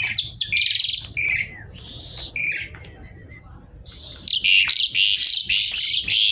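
Asian pied starling (jalak suren) singing a busy, harsh chattering song: a few short whistled notes at the start, then rasping, crackling phrases that run together almost without a break in the second half.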